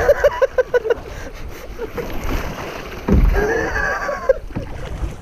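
Kayak paddles dipping and splashing in moving river water. A voice comes in quick repeated bursts in the first second, and a louder low rush with a voice starts about three seconds in.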